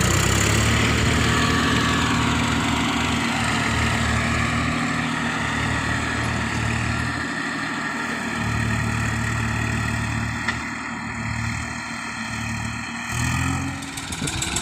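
A tractor's diesel engine runs steadily with a low note while it pulls a trailer loaded with soil. Near the end the engine note rises.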